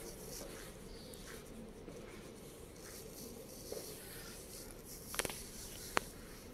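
Quiet room tone with a faint steady hiss, broken by two short sharp clicks about five and six seconds in.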